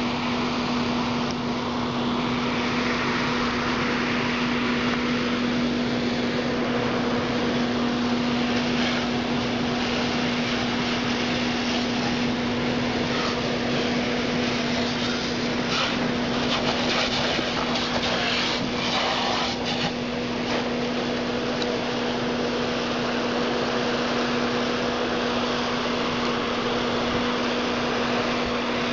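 Engine-driven fire pump running steadily with a constant hum, over the hiss of hoses spraying water. A rougher stretch of hissing and crackling comes about halfway through.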